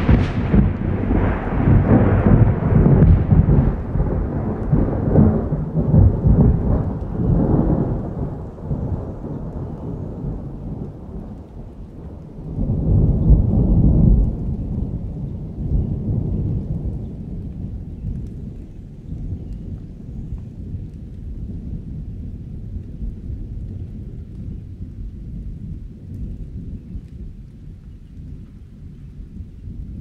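Thunder rolling in a summer storm, with rain underneath. A loud crash rumbles on and dies away over the first ten seconds or so, a second roll swells about thirteen seconds in, and then a low rumble slowly fades.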